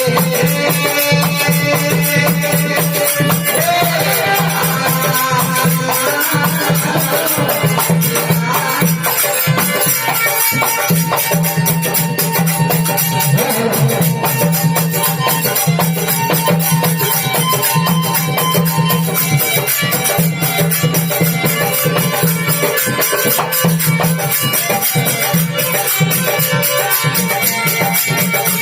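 Marwari folk devotional bhajan music: sustained melodic tones over a low pulsing beat and a fast, even jingling percussion rhythm, with occasional gliding melodic phrases.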